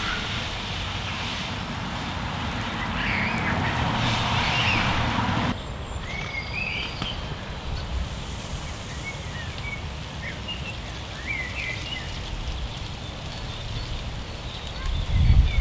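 Water hissing from a 1960s Nelson Dial-a-Rain oscillating lawn sprinkler as its fan of jets sweeps and patters onto the grass, with small songbirds chirping over it. The spray is louder for the first five seconds and drops suddenly, and a low rumble comes up near the end.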